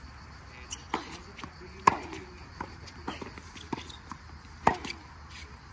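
A tennis rally on a hard court: a string of sharp pops from the ball off racket strings and the court surface at an irregular pace. The two loudest hits come about two seconds in and near the end.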